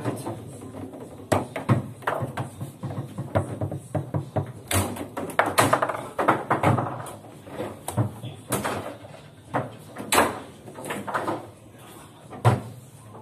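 Foosball table in play: irregular sharp clacks and knocks as the plastic figures strike the ball and the rods bang against the table, with a few louder shots near the middle and near the end.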